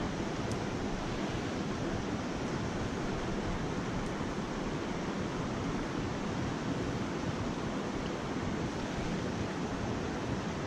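Steady rushing of flowing river water, an even wash of noise that holds level throughout.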